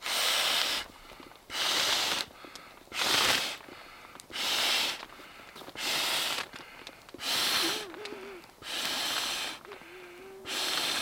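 A man blowing into the valve of an inflatable sleeping pad by mouth: eight strong blows about one and a half seconds apart, each a rush of air lasting under a second, with quieter in-breaths between.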